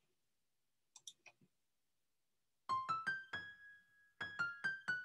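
A short tune of single piano-like notes from a phonics cartoon's soundtrack, starting about halfway in: a few rising notes, one held briefly, then a quicker run of notes near the end.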